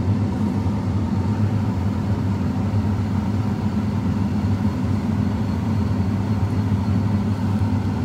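Steady low drone of a John Deere X9 combine harvester's engine and threshing machinery, heard from inside the cab as it moves slowly through the crop with a full grain tank.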